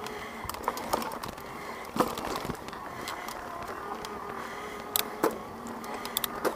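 Specialized Levo e-mountain bike's mid-drive motor whining under pedal assist, its pitch wavering and fading for a couple of seconds early on, over the rattle of tyres and bike on a rough dirt trail. Sharp knocks from bumps come about two seconds in, the loudest, and again around five and six seconds in.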